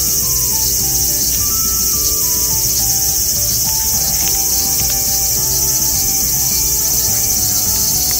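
Steady, high-pitched chorus of insects, unchanging throughout, with a soft melody of held notes underneath.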